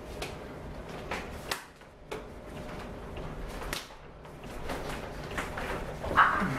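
Irregular sharp slaps and thuds of forearms and hands striking and blocking in Wing Chun chi sau, about half a dozen light ones and a louder one near the end.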